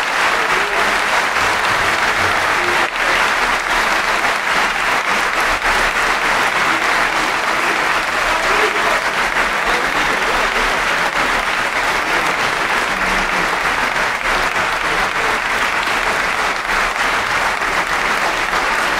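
Opera-house audience applauding steadily.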